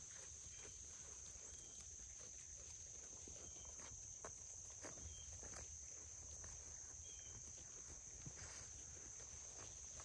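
Quiet pasture ambience: a steady high-pitched insect drone, with scattered soft crunches and rips of sheep cropping grass.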